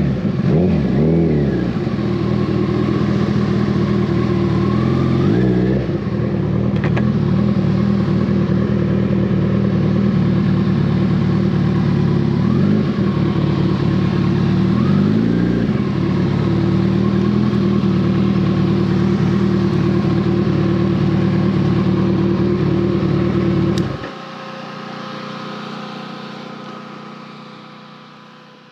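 Kawasaki ZX-14R inline-four engine through a full Brock's Alien Head 2 exhaust, running under way with the revs swinging up and down a few times. About four seconds before the end the engine sound drops abruptly to a much quieter hum that fades out.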